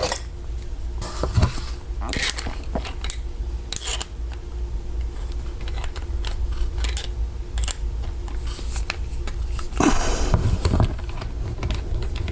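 Small metal clicks and scrapes of a large padlock being handled and taken apart, with a busier, louder stretch of scraping about ten seconds in.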